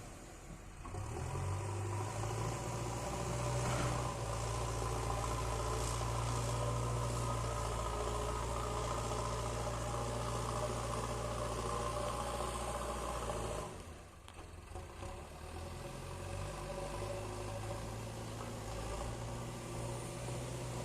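JCB earthmover's diesel engine running with a steady low drone. It drops off sharply about fourteen seconds in, then runs on a little quieter.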